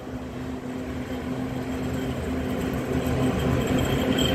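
PKP Cargo ET22 electric locomotive hauling a freight train, approaching with a steady low hum that grows louder as it nears.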